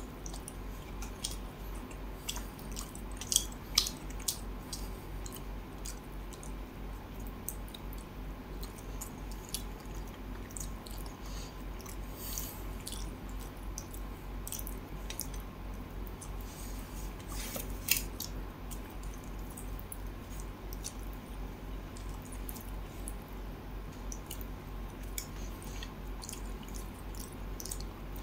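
Close-miked hand-eating of fish curry and rice: chewing with wet, sticky mouth clicks and smacks, scattered all through, a few sharper ones about three to four seconds in and again near eighteen seconds.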